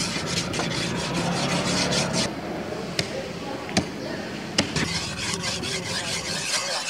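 Hands scraping and rubbing over a wet wooden chopping block in quick repeated strokes, with a few sharp knocks in the middle.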